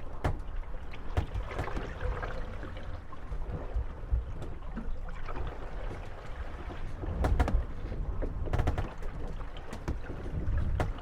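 Moored wooden gondolas rocking in the waves, knocking and creaking against each other now and then over the steady low wash of water and wind. The knocks are scattered, with small clusters a little past the middle and near the end.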